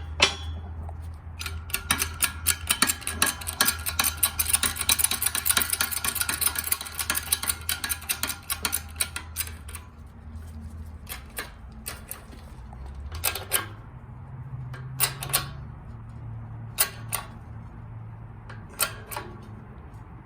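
Shop press working on a riveted aluminum control arm as its rivets start to be pressed out: rapid metallic clicking and ticking, thinning to a few scattered clicks after about ten seconds, over a low hum.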